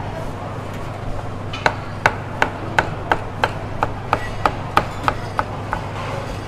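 Cleaver slicing fish cake into strips, its blade knocking on a wooden chopping board: about a dozen sharp chops, roughly three a second, starting about a second and a half in and stopping near the end. A steady low hum runs underneath.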